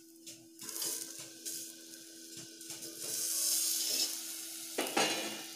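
Hot oil tempering of mustard seeds, garlic, curry leaves and cumin sizzling in a steel pot while the steel plate lid is handled and lifted off, with metal clinks and scrapes of plate on pot. The sizzle swells louder about halfway through once the pot is uncovered, with a sharp metal knock near the end and a low steady hum underneath.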